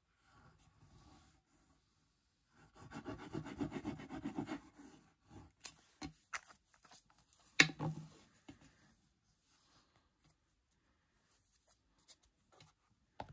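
Quiet scratchy rubbing of paper as liquid glue is drawn in lines across a cardstock square, followed about halfway through by one sharp knock on the hard craft mat and then a few light taps as paper is laid down.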